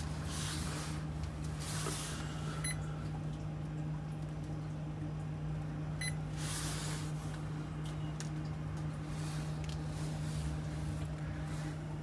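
A GE side-by-side refrigerator running with a steady low hum and a fainter overtone above it. A few brief rustles come and go over the hum.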